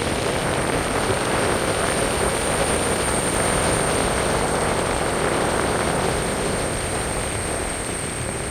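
Steady road and tyre noise of a car driving, with a thin, steady high-pitched tone above it.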